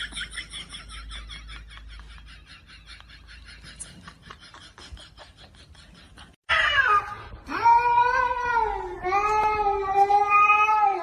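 A cat yowling in two long, drawn-out, wavering calls in the second half, after a fast run of high, fading chirps.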